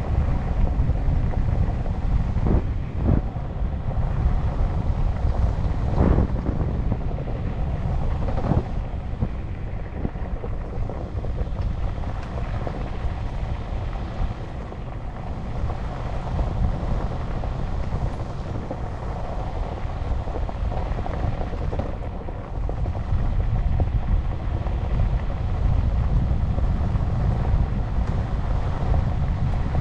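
Wind rushing over the microphone of an electric bike riding at speed, a steady low rumble, with several short knocks in the first nine seconds.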